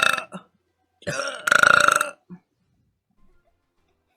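Loud female burps: the tail of one right at the start, then a second, longer burp from about one to two seconds in.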